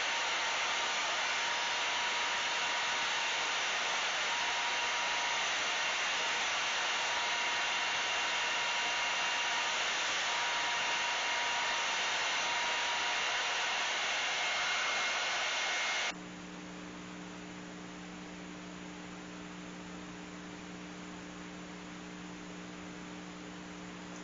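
Ryobi benchtop belt sander running steadily, a loud even rushing noise with a faint whine in it, as its new dust shield is tested. About two-thirds of the way through it is switched off and stops abruptly, leaving a quieter steady low hum.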